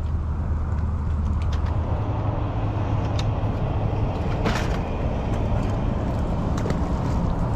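Boat motor running steadily with a low hum. Short clicks and a brief plastic rattle about halfway through come from a tackle tray being handled.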